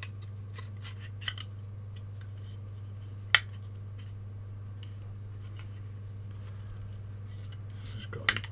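Perforated sheet-metal shield of a Sony SLV-E700 VCR's power supply being handled and clipped into place: scattered sharp metallic clicks, the loudest about a third of the way in and a quick cluster near the end. A steady low hum runs underneath.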